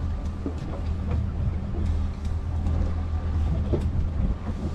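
Fishing boat's engine running steadily, a continuous low hum, with a few faint knocks.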